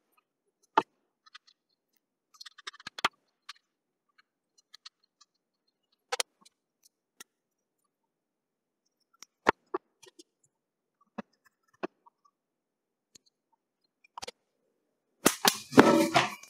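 Small metal clicks and taps of pliers and a soldering iron on a DC barrel plug as it is desoldered. Near the end there is a sudden loud snap and crackle lasting about a second: the laptop power supply's capacitors, still charged, discharging across the plug's contacts.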